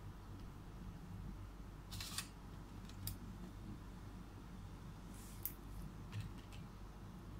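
A few faint clicks and short scrapes of laptop parts being handled, scattered through the seconds over a low steady hum.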